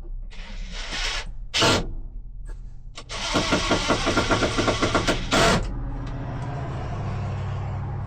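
Cordless drill driving screws into barnwood: a few short trigger bursts, then a longer run of about two and a half seconds with a rapid pulsing, ending in a loud burst as the screw seats.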